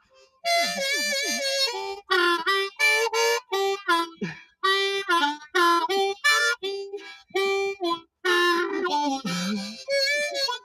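Harmonica played solo: a melody of short, separate notes and chords, in phrases broken by brief pauses.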